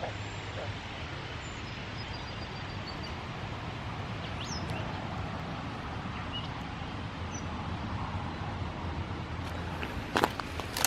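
Steady outdoor background noise with a few faint, short bird chirps, and a couple of sharp clicks near the end.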